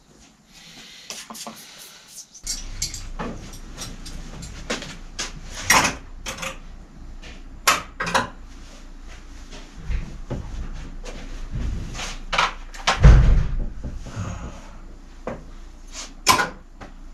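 Bicycle repair clatter: a run of irregular sharp clicks and knocks from tools and parts being handled on a bicycle in a repair stand, with one heavier thump about 13 seconds in. A brief rubbing hiss comes at the start.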